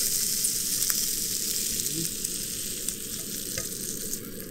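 Little smokies sausages sizzling in a frying pan, the sizzle fading as the pan is lifted off the camp stove's burner.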